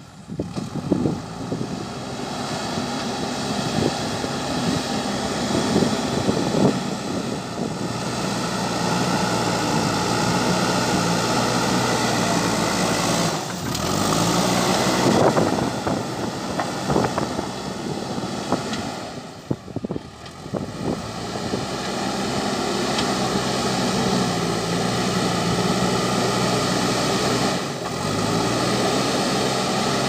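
JCB 3DX backhoe loader's four-cylinder diesel engine running steadily under load as the front bucket pushes and levels loose soil, with a few brief drops in level.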